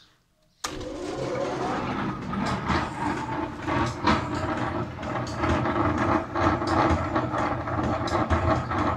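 A machine starts abruptly about half a second in and runs steadily with a loud, rattling mechanical noise and scattered sharp clicks.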